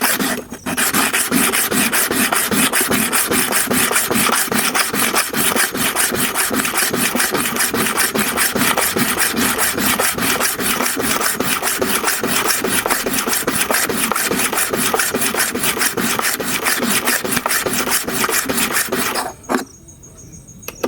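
Hair clipper blade being rubbed rapidly back and forth on an oiled diamond sharpening stone, a fast, even rasping that stops near the end. The blade is being sharpened.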